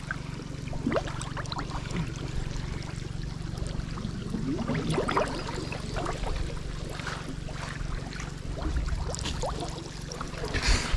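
Irregular splashing and rustling, like footsteps through shallow water and brush at the water's edge, over a steady low rumble.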